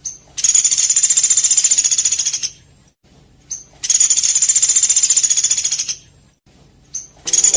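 Songbird song: a short high note followed by a fast, rattling high-pitched trill about two seconds long, repeated three times.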